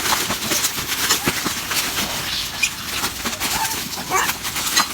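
Monkeys rustling and scrabbling while they feed, with many quick clicks and rustles and a few short, high calls in the second half.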